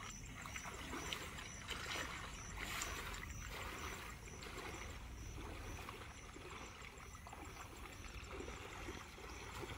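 Pond water sloshing and splashing around a person wading thigh-deep and working a fishing net through the water, with the splashes strongest in the first few seconds.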